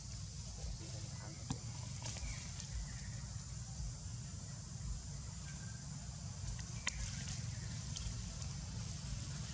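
Outdoor ambience under trees: a steady low rumble and a steady high hiss, with a few sharp clicks and faint short chirps.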